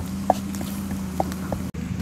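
Wood embers of a cooking fire crackling: sharp, irregular pops two or three times a second over a steady low hum.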